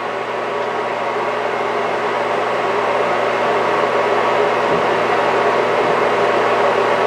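Steady machine hum and whir from an FTL 320 CNC lathe standing with its spindle stopped, slowly getting a little louder.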